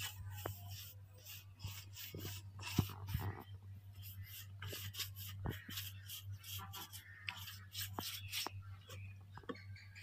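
Paintbrush bristles stroking wet finish across a thnong (padauk) wood slab, a quick run of soft swishes with a few light clicks, over a steady low hum.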